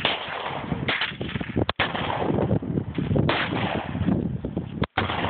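Gunshots from firearms being fired: several sharp shots a second or two apart, with the noise lingering between them.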